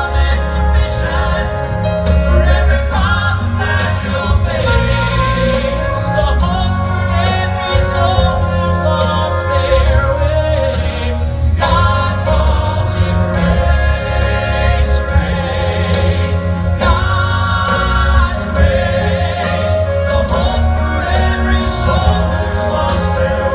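Southern gospel male quartet singing in harmony through a PA, over amplified backing music with a strong, steady bass line.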